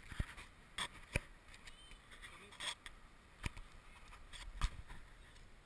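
A few sharp, irregular clicks and knocks, about six in all, the loudest near the end: handling noise from an angler working a spinning rod and reel while bringing in a hooked fish.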